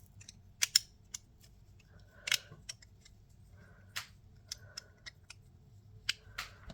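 Glow Derby fidget slider worked back and forth in the hand: irregular sharp clicks and snaps, with a few faint short sliding scrapes between them.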